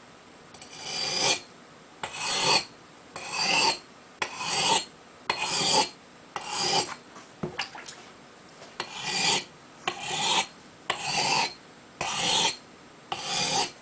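Axe blade being ground on a whetstone: a rhythmic series of gritty scraping strokes, about one a second, each swelling louder as it goes, with a short pause midway.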